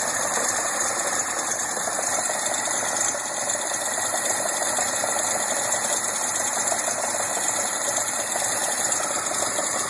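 Datsun engine running steadily with a rapid mechanical clatter: the mystery clunking noise whose cause is being sought.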